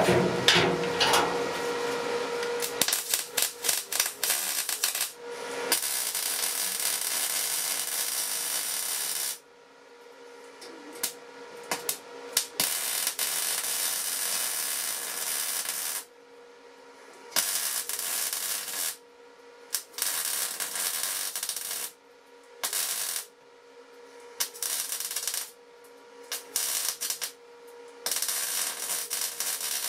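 Arc welding with a wire-feed (MIG) torch on thin sheet steel: a steady crackling arc, held for about nine seconds at first, then in shorter runs of one to three seconds with brief pauses between them.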